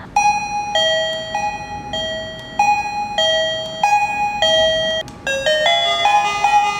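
KERUI M7 wireless doorbell receiver playing an electronic chime tune: two tones alternating high and low, about one note every 0.6 s. About five seconds in, a faster tune of several notes starts, a different ringtone.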